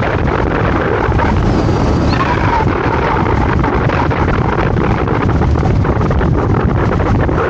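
Steady wind buffeting the microphone of a camera on a moving scooter, with the scooter's engine running under it.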